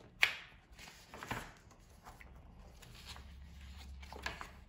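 Pages of a large glossy photobook being turned and handled: a sharp paper crackle about a quarter second in, then a few softer rustles of paper.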